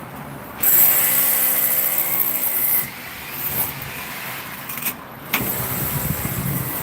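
A power tool running in two bursts of about two seconds each, switching on and off abruptly.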